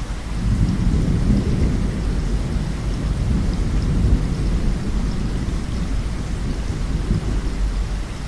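Rolling thunder over steady heavy rain: a deep rumble swells about half a second in, is strongest for the next few seconds, then slowly fades while the rain goes on.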